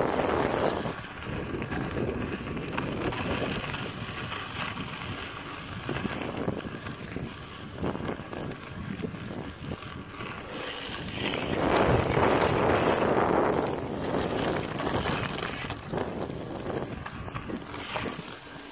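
Wind buffeting the microphone over the rattle and crunch of a mountain bike rolling along a dirt and gravel track. The wind swells strongest about two-thirds of the way through.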